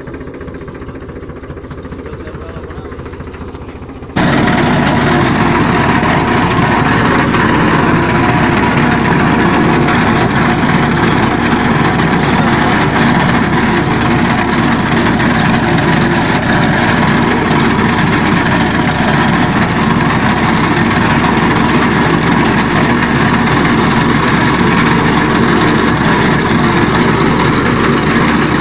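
Tractor engine running steadily under load with its mounted reaper cutting green crop. About four seconds in, the sound jumps abruptly louder and then stays even.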